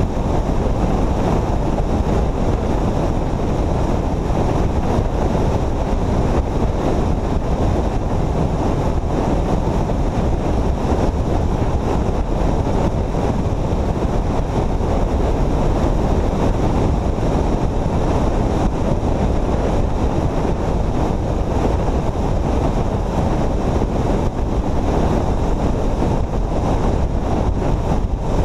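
Steady, heavy wind rush on a vehicle-mounted camera's microphone at highway speed, with road noise underneath.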